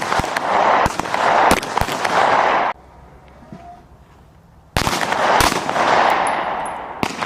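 Small-arms gunfire on a shooting range: irregular single shots, some in quick pairs, with a loud rush of noise carrying on between them. The sound cuts off abruptly about two and a half seconds in and comes back with fresh shots nearly two seconds later.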